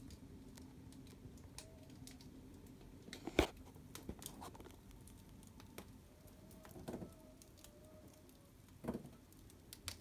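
Fire crackling faintly with irregular sharp pops, the loudest a little over three seconds in and a few more near seven and nine seconds.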